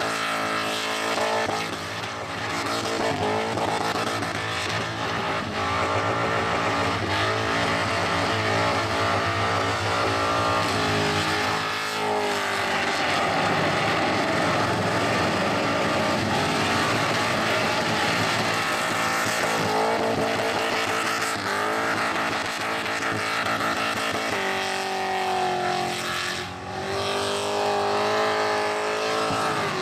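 A car's engine held high in the revs during a burnout, with the tyres spinning and screeching. The revs waver throughout and drop briefly near the end before climbing again.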